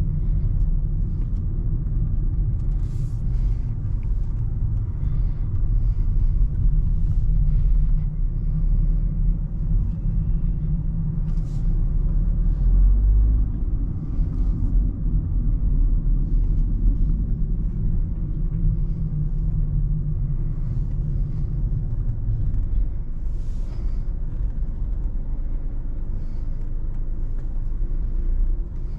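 Cabin sound of a BMW 218i Active Tourer's 1.5-litre petrol engine and its tyres on the road, a steady low rumble while driving slowly in city traffic, with a few faint clicks.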